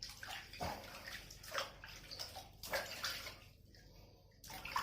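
Water splashing and sloshing in irregular bursts as a kitten is washed in a tub of warm water, with a short lull near the end before another splash.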